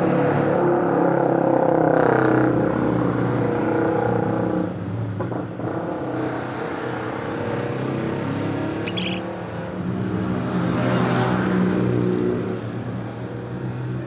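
Motor vehicle engine running, its sound swelling and fading rather than holding steady.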